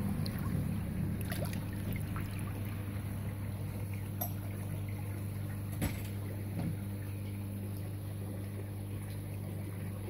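Water sloshing softly in a plastic tub as a large koi is held still in it, over a steady low hum; a sharp click about six seconds in.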